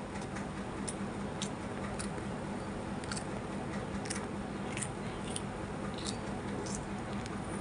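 Small kitchen knife slicing through okra pods held in the hand, a crisp snick with each cut, about ten cuts at uneven intervals.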